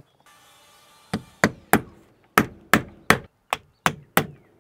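Hammer blows nailing trim against a window frame: about nine sharp strikes, roughly three a second in short groups, starting about a second in.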